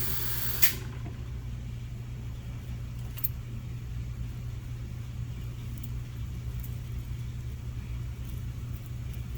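Cylinder-head machine running with a steady low hum while cutting about another ten thousandths off a valve guide for seal clearance. Less than a second in, a high hiss cuts off with a click.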